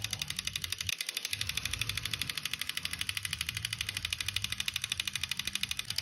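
Homemade 3D-printed electric fan motor with iron-cored copper-wire coils running, making a rapid, even ticking over a low hum.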